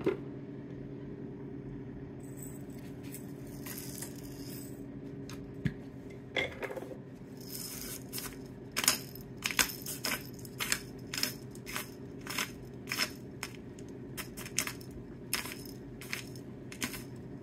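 Hand pepper mill grinding pepper, a run of short crunching strokes starting about six seconds in, over a steady low hum.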